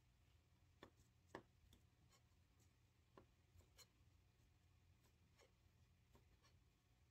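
Very faint knife work on a plastic cutting board as a skin-on red sea bream fillet is sliced for sashimi: scattered soft taps and short scrapes, the loudest a little over a second in, over a low steady hum.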